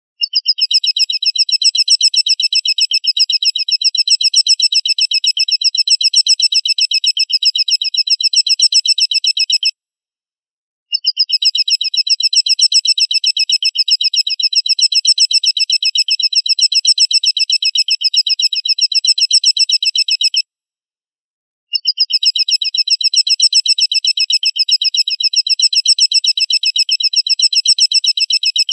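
Looped bird-call recording sold as an eagle (elang) masteran: a high, fast trill of evenly repeated short notes. It comes in three bouts of about ten seconds, broken twice by about a second of dead silence.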